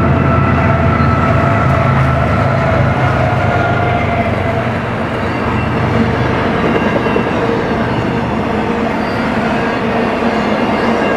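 Freight train passing: mid-train BNSF diesel locomotives run loudly by for the first six seconds or so, their engine sound then fading as double-stack container well cars keep rolling past with steady wheel and rail noise.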